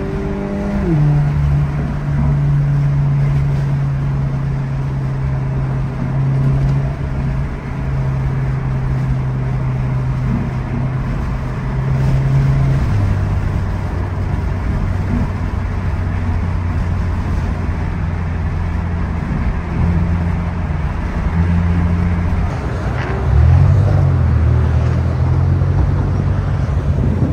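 2023 Toyota GR86's 2.4-litre flat-four engine heard from inside the cabin at highway speed, a steady drone over tyre and road noise. Its pitch steps down about a second in and again about halfway through, as at upshifts, and briefly rises and wavers near the end.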